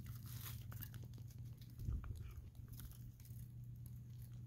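American Akita puppy chewing and biting on dry tree branches: irregular small crunches and cracks of wood, with a dull thump about two seconds in, over a steady low hum.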